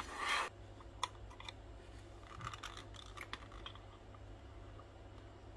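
Plastic sewing-machine housing shifted briefly on the cutting mat, then scattered light clicks and scrapes of a small metal tool working a circlip off the steel rod inside it.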